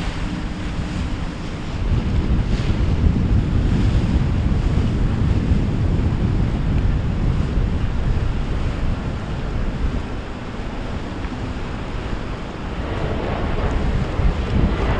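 Strong wind buffeting the microphone over the wash of surf, with a swell of louder water noise near the end.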